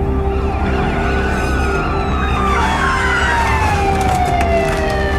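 Police sirens wailing, several at once, their pitch sliding down in long overlapping sweeps over a steady low rumble.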